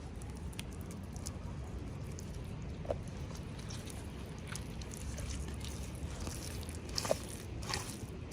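Small handling noises: scattered light clicks and taps, with a sharper click about three seconds in and a couple more near seven seconds, over a steady low hum.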